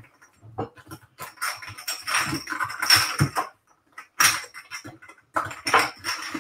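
Kitchen things being handled and put away: an irregular string of clinks and knocks from utensils, jars and containers being picked up and set down.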